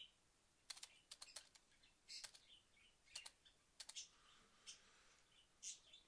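Faint computer keyboard and mouse clicks, in short irregular clusters of a few clicks each.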